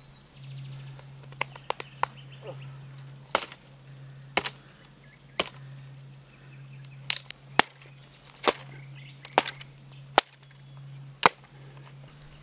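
Small axe chopping thin dry branches on the ground: about a dozen sharp, irregularly spaced chops.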